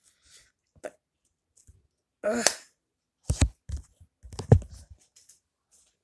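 Handling noise: a light click, then a few knocks and two heavier low thumps as small plastic and metal parts and the phone are moved about, with a short vocal sound about two and a half seconds in.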